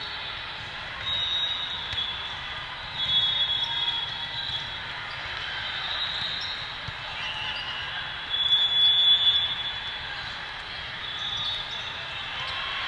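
Indoor volleyball rally on a hardwood court: short high squeaks of athletic shoes and the ball being played. The loudest cluster of squeaks comes about eight to nine seconds in, over a steady murmur of spectators in a large, echoing hall.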